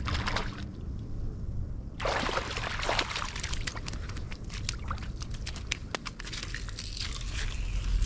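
Hooked speckled trout splashing at the surface of shallow water as it is reeled in, starting about two seconds in, then slid up onto a beach of broken shells with crunching and light clattering.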